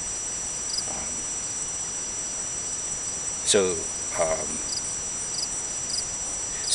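Crickets chirping in a steady chorus: a continuous high trill with short repeated chirps over it. Two brief falling voice sounds break in a little past halfway.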